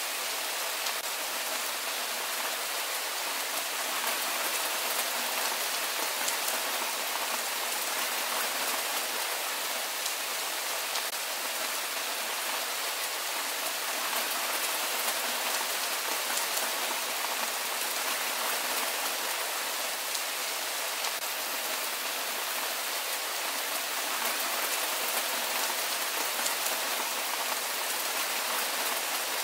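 Steady rain falling, an even hiss of many drops with a fine patter and no low rumble.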